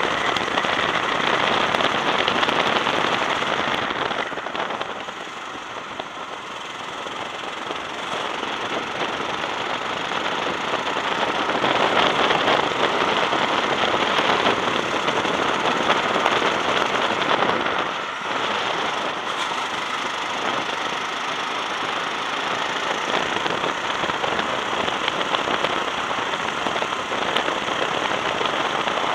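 Go-kart engine running hard on track, heard from the driver's seat with wind buffeting the microphone into a coarse crackle. The engine note eases and the level drops twice, around five seconds in and again briefly past the middle, then it picks back up.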